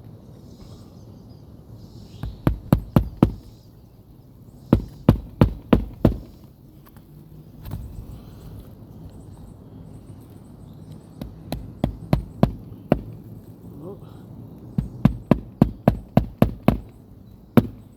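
Hammer driving roofing nails into asphalt shingles: quick runs of four to eight strikes with pauses between them, plus a few single blows.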